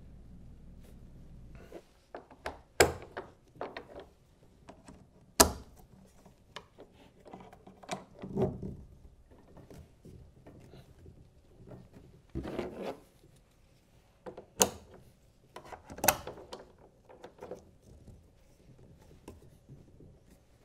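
Hands working a Hobie adjustable rod extender and its straps on a kayak's molded-in rod holder: scattered plastic clicks and knocks with strap and plastic rubbing in between, four sharp clicks standing out. A faint hum cuts off about two seconds in.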